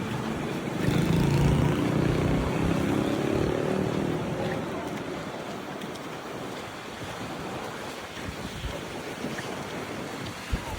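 Wind and surf on a beach, with gusts buffeting the microphone. A low pitched hum rises over it for a few seconds about a second in, and there is a brief thump near the end.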